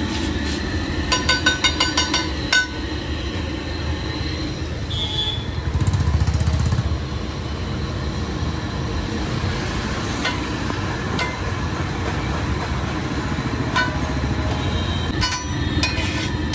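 Steady low rumble of street traffic, swelling for a couple of seconds midway. Over it come two quick runs of ringing metal clinks, about five or six a second, like a spatula striking an iron griddle: one about a second in and another near the end.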